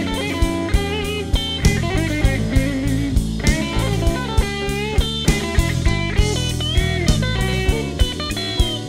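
Electric blues music: an electric guitar playing a lead line with bent notes over bass and a steady drum beat.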